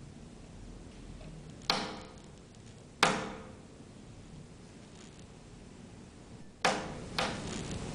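Four sharp knocks or bangs, each with a short ringing tail: one a little under two seconds in, one about three seconds in, and two close together near the end, over a faint low hum.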